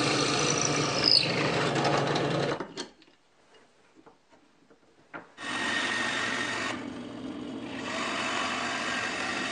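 Drill press boring into a clamped wooden block, stopping about two and a half seconds in. After a quiet pause and a click, the homemade wooden lathe starts and runs steadily through to the end.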